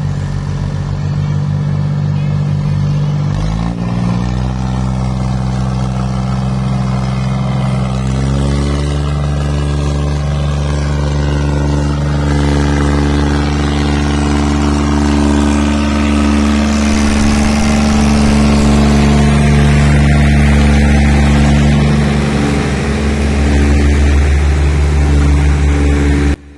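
Diesel tractor engine labouring as it hauls a heavily loaded sugarcane trolley. Its pitch climbs in two steps in the first eight seconds, then holds steady under load, growing louder as it draws close in the second half.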